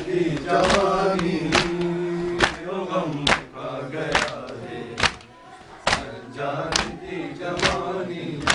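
A group of men chanting a noha, a mourning lament, with a sharp, even chest-beat (matam) a little over once a second. The singing drops away briefly about five seconds in while the beats go on.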